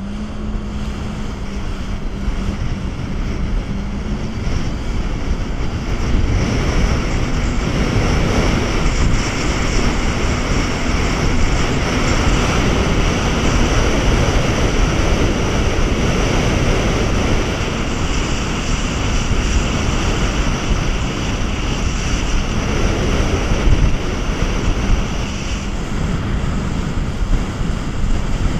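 Jet ski running at speed with a steady engine hum and a thin high whine, under heavy wind rushing over the microphone and water spray hissing off the wake.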